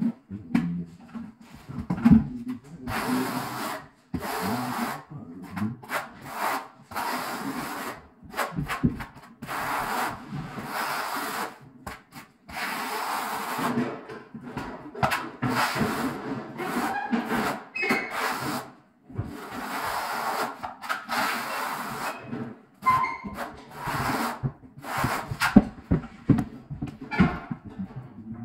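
Notched steel trowel spreading and combing thinset mortar over a concrete floor: a long series of scraping strokes, each about a second long, with short pauses between.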